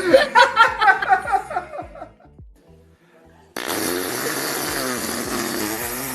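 Laughter in quick pulses, then after a short lull a long, loud, raspy fart with a wobbling pitch starts suddenly about three and a half seconds in, holds at an even level and stops abruptly near the end.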